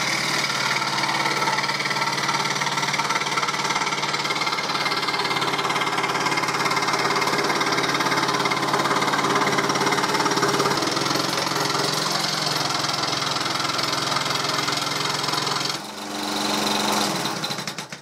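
Hegner scroll saw (fretsaw) running steadily, its reciprocating blade cutting a circle out of plywood. Near the end the sound changes briefly, then stops.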